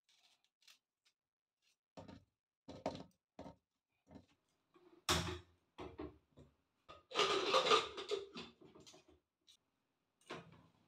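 Metal pressure cooker being handled and set on a gas stove: scattered clanks and knocks, one louder knock about five seconds in, and about a second of denser clatter and scraping a couple of seconds later.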